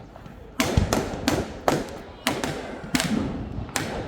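Fireworks going off: an irregular run of sharp bangs, about eight of them, each trailing off in a brief echo.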